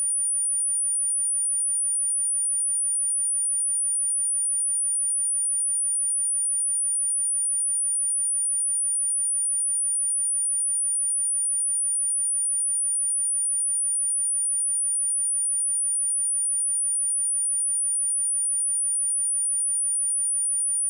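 A steady, very high-pitched pure tone: a 9453 Hz sine wave at constant level, a test tone played to check a speaker and to shake water and dust out of it.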